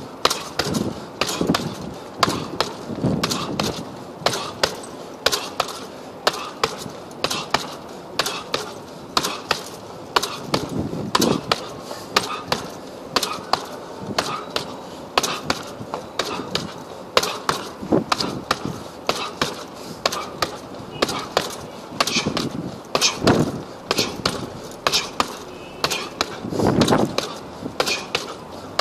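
Gloved punches landing on a hanging heavy bag: a steady run of sharp, uneven hits, about two or three a second.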